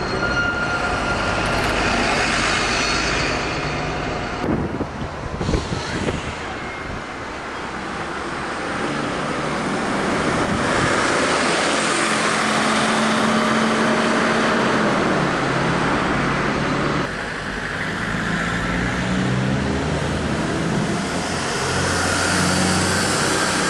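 Street traffic noise with a double-decker bus's diesel engine running as it passes close by, its engine note strongest about halfway through. A few short knocks come about five seconds in.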